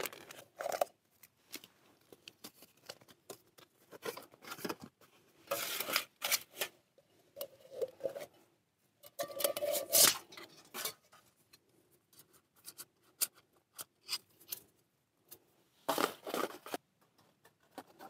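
Camp cooking gear being handled: a food pouch opened, then a thin metal stove ring and tin pulled from a metal pot and set down on a foil base. It makes irregular rustles, scrapes and light clicks, louder about six, ten and sixteen seconds in.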